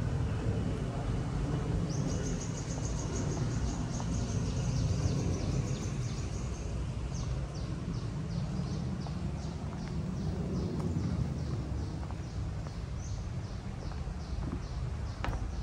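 An animal's high chirping call repeating in a steady rhythm, about two to three chirps a second, starting about two seconds in, over a steady low rumble of outdoor ambience.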